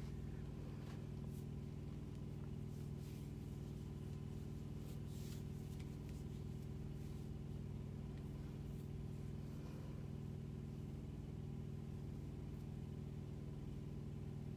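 Vehicle engine idling, a steady low hum heard from inside the cab.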